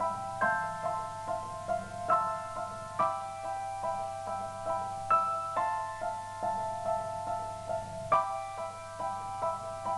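Slow, gentle piano music, with notes struck about twice a second and left to ring into one another.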